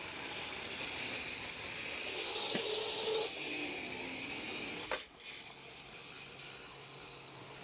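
Tiny electric drive motors and gearboxes of 1:87-scale RC trucks whirring, a thin high hiss that rises and falls as they drive, with a sharp click about five seconds in.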